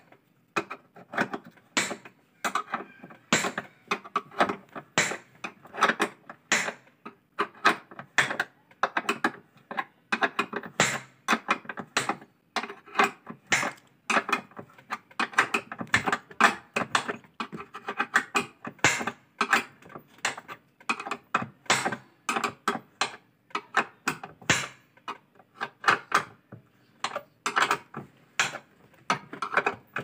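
Quick, irregular metal clicks, a few a second, from a wrench tightening the motor mounting bolts of a washing machine. Each turn draws the drive belt to the gearbox pulley tighter.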